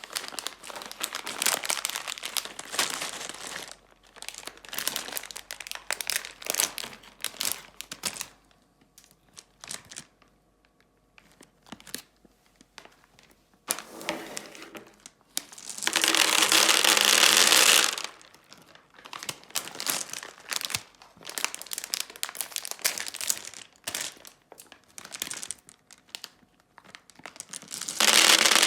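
Plastic candy packets crinkling and tearing as M&M bags are handled and opened, in irregular crackly rustles with a quieter stretch in the middle. Two louder steady noisy stretches of about two seconds each come about halfway and near the end.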